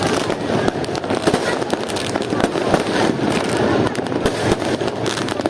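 Fireworks going off continuously, a dense, irregular barrage of overlapping bangs and crackles with no let-up.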